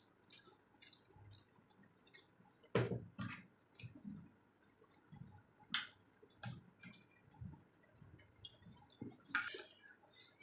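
Close-miked wet chewing, lip smacks and mouth clicks of someone eating rice with sour dal, with louder smacks about three, six and nine seconds in.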